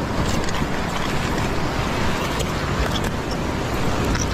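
Ocean swell surging and washing over a rock ledge in a steady rush of foaming water, with wind rumbling on the microphone.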